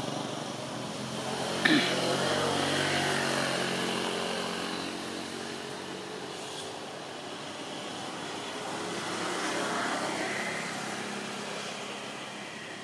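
A motor vehicle passing, its engine hum swelling and then fading, with a sharp click about two seconds in; a second, softer swell of traffic noise comes around ten seconds in.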